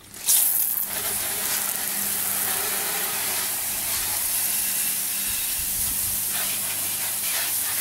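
Water spraying under pressure from the nozzles of a PVC underbody washer fed by a garden hose. A steady hiss comes on suddenly just after the start and holds.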